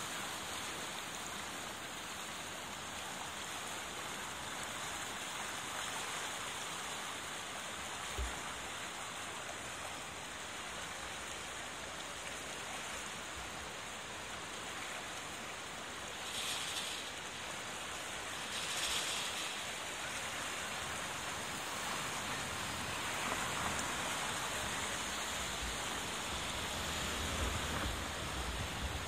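Swollen, muddy Katsura River in flood after torrential rain, rushing steadily as a broad, even hiss, with a couple of brief louder swells about two-thirds of the way through.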